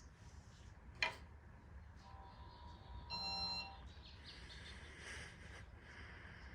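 A sharp click about a second in, then a short steady electronic beep about two seconds later, over the low steady hum of a running ceiling fan.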